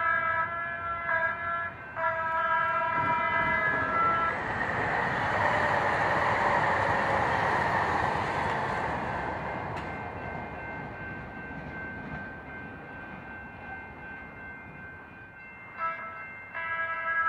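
Multi-tone train horn finishing the grade-crossing warning sequence, with a short blast and then a long one in the first four seconds. A passing train follows, a rush that swells to a peak about six seconds in and slowly fades. Near the end a horn starts another sequence of blasts.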